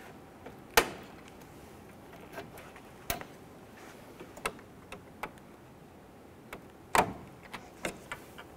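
Plastic push-button retaining clips across the top of a car grille being pried up and popped out with a forked trim tool: a run of sharp plastic clicks and snaps, the loudest about a second in and again near the end, with lighter ticks between.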